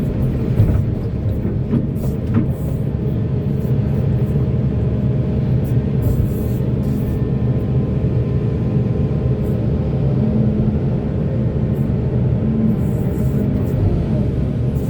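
Diesel engine of heavy Volvo mining machinery running steadily, with a few short clicks and knocks scattered through it.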